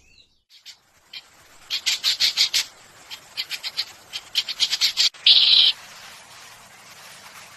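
A songbird singing: three quick runs of sharp, rapid high notes, then a loud harsh buzzy note about five seconds in.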